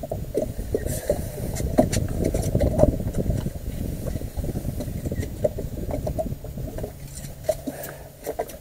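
Wind buffeting an action-camera microphone: an irregular low rumble that rises and falls in gusts, with a faint steady hum underneath.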